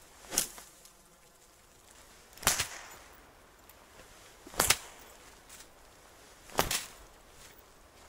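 Four sharp slaps, evenly spaced about two seconds apart: fast, relaxed whipping punches striking a held target, with a snap each time.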